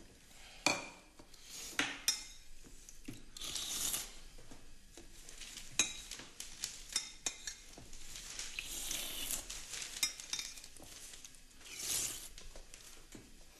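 Spoons clinking against soup bowls at a meal of pasta in broth, with a few sharp clicks and several swells of slurping as the broth is eaten.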